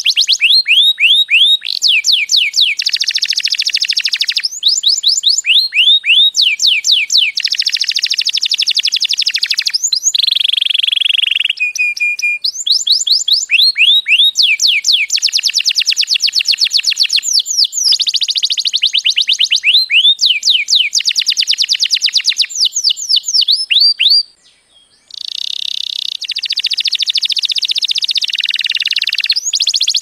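Male domestic canary singing a long, loud song. Quick runs of repeated falling whistled notes alternate with fast buzzy trills, with one short pause about two-thirds of the way through.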